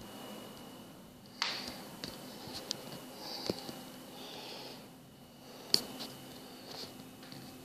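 Handheld recording noise in a small bare room: scattered soft clicks and rustles, the sharpest click about six seconds in, with a couple of breathy hisses and a faint steady high whine underneath.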